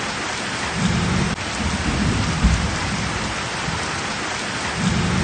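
Heavy rain pouring steadily, with low rumbles of thunder swelling now and then.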